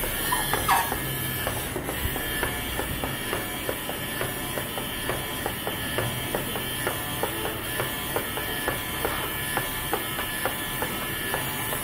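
Small battery-powered geared DC motor of a homemade plastic walking robot dog running steadily, its legs clacking on the tabletop about twice a second in a regular rhythm.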